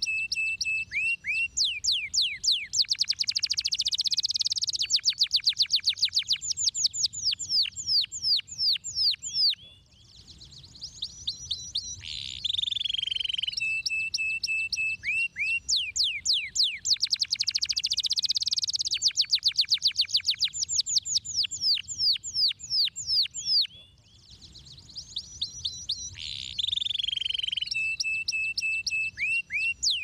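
Domestic canary singing: long song phrases of fast trills and rapidly repeated high notes with a held whistle, the same phrase coming round about every 12 to 14 seconds after a short quieter pause.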